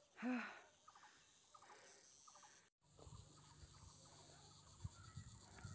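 Faint outdoor ambience: a short rising-and-falling call near the start, then faint insect chirps repeating about every half second. After an abrupt cut a little under three seconds in, a low rumble of wind or handling noise with a few soft thumps.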